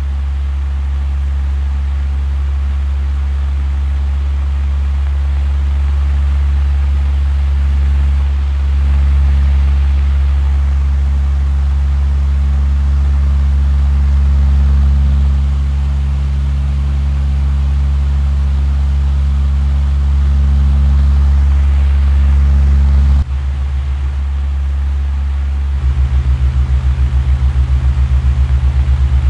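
Heavy diesel construction machinery running steadily with a deep, low drone. Its sound changes abruptly about two-thirds of the way through, then takes on a fast, even pulsing near the end.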